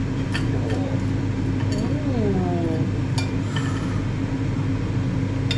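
Ninja dual-drawer air fryer running with a steady hum, with short clinks and scrapes of a table knife on a ceramic plate as toast is buttered and cut.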